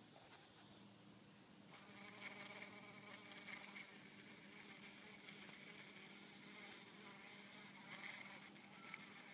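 A bumblebee buzzing inside a lady's slipper orchid's pouch, starting about two seconds in and rising and falling in strength as it moves about trying to find a way out.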